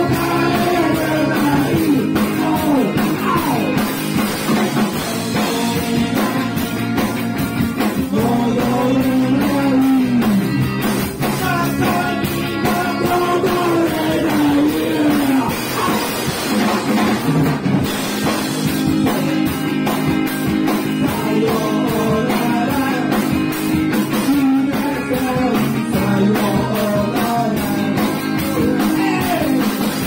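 Live rock band playing: a male singer sings over electric guitars and a drum kit keeping a steady beat.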